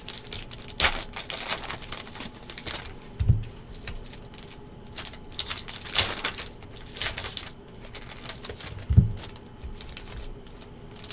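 Panini NBA Hoops card packs being torn open by hand, wrappers crackling and crinkling in irregular clicks as the cards are handled. A low thud comes about three seconds in and a louder one about nine seconds in.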